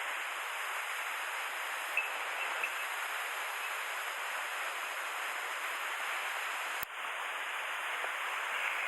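Mountain stream running steadily, an even rush of water, with a single brief click about seven seconds in.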